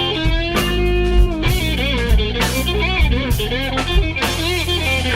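Live slow blues band: an electric guitar plays a lead fill of bent, wavering notes between vocal lines, over bass guitar and drum kit.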